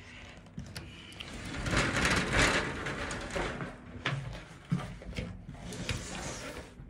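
Wooden-framed glass sliding door rumbling along its track as it is slid open, then a few light knocks.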